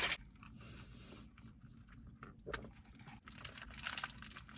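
Faint eating and handling sounds: scattered small clicks and rustles, with one sharper tap about two and a half seconds in.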